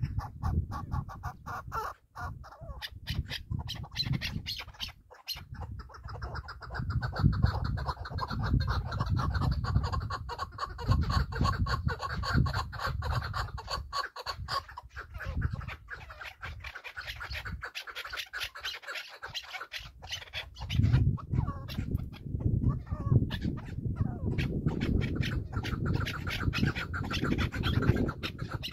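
A partridge calling: long runs of rapid, repeated clucking notes. A loud low rumble sits underneath and grows stronger about two-thirds of the way through.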